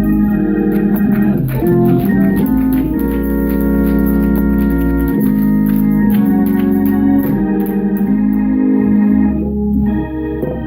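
Church organ, Hammond-style, playing slow sustained chords over a steady bass as meditation music before prayer.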